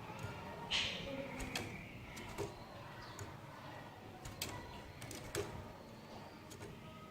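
Cililin songbird calling: sharp, short clicking chip notes, roughly one a second, with faint thin whistled notes underneath.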